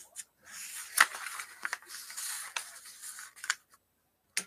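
A scraping, rustling sound lasting about three seconds, broken by several sharp clicks, with another couple of clicks near the end.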